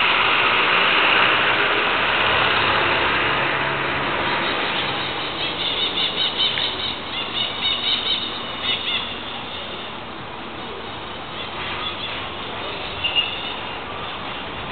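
Outdoor street ambience. Traffic noise is loudest at first; then a run of high, repeated chirps, about two a second, lasts for a few seconds in the middle before the background settles.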